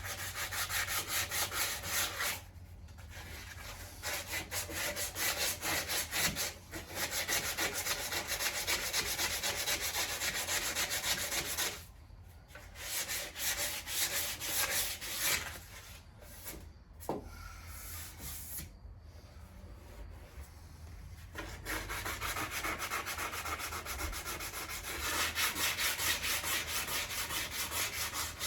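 Sanding on a car's body panel: a steady rasping scrub of abrasive paper over the metal and filler, stopping briefly a few times, with a longer quieter lull about two-thirds of the way through.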